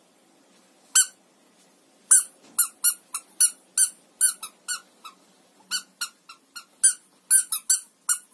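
Rubber squeaky mouse cat toy squeezed by hand over and over: one squeak about a second in, then a quick run of short squeaks, two or three a second.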